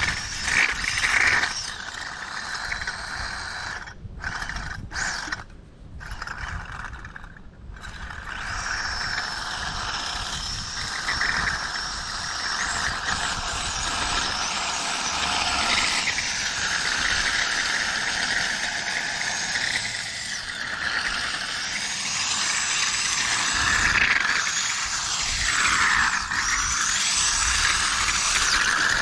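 RC car running on jar lids instead of tyres across rough concrete: its electric motor whines, rising and falling in pitch with the throttle, over the steady noise of the hard lids on the surface.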